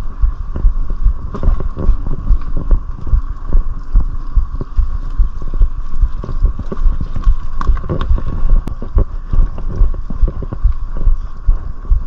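Mountain bike jolting over rough trail: a dense run of irregular knocks and rattles, with a steady hum underneath.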